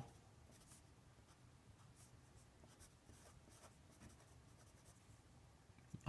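Faint scratching of a pen writing on paper in short strokes, as figures are written out by hand.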